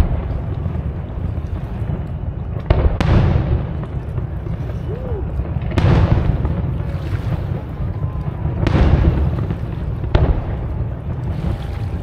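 Aerial fireworks shells bursting overhead: about five booms a few seconds apart, two of them in quick succession, each one trailing off slowly.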